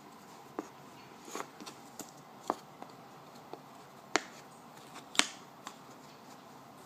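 Jigsaw puzzle pieces being handled and set down, making scattered light clicks and taps, about nine over several seconds with the sharpest two a little past four and five seconds in.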